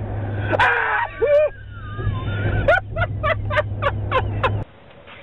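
Steady car engine and road hum inside the cabin. About half a second in comes a sudden loud startled yell, followed by high-pitched cries and a quick run of about six short shrieks. The hum cuts off near the end.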